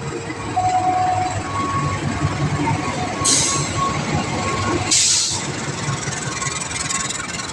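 A train passing over a railway level crossing, a dense steady rumble, while the crossing's warning alarm keeps sounding in steady tones. Two short hissing noises come about three and five seconds in.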